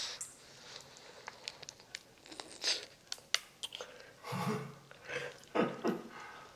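Eating and drinking mouth sounds: a sip from a large plastic cup of iced drink, then small clicks and crunching chews. Two short hums come about four and about five and a half seconds in.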